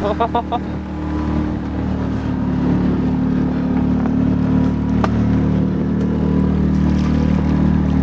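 Small motorboat's engine running steadily under way: a low, even hum over water and wind noise that gets a little louder over the first few seconds.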